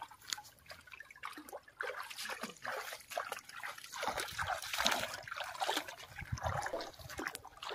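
Shallow muddy water sloshing, trickling and splashing irregularly as people wade through it.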